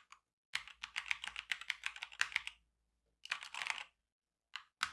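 Keys of a Motospeed CK67 mechanical keyboard clacking as they are pressed: a fast run of keystrokes lasting about two seconds, a shorter burst a moment later, then a single press near the end.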